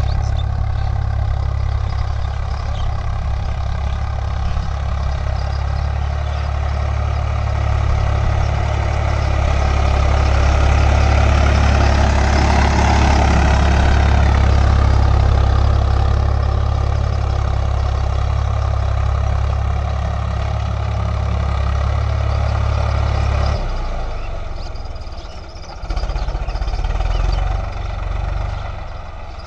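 Diesel farm tractor engines running steadily under load while pulling a tined cultivator through soil. The sound swells loudest around the middle as an orange Swaraj 855 works close by. It then drops and changes suddenly about three-quarters of the way through.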